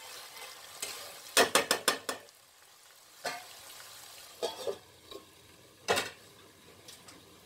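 Metal spatula scraping and knocking in a kadhai, several quick strikes about a second and a half in and a few single knocks later, over a faint steady sizzle of chicken and scrambled egg frying.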